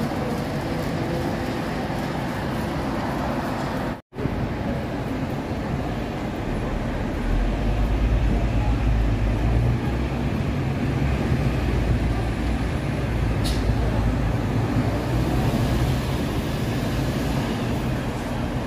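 Steady city road traffic noise from passing cars, with a louder low rumble building from about seven seconds in and easing off near the end. The sound cuts out for a moment about four seconds in.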